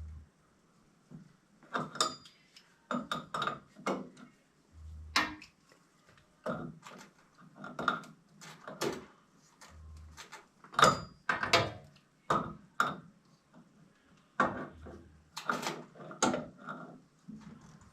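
Irregular clicks, knocks and light clanks of hand tools and metal plumbing parts being handled during pipe work.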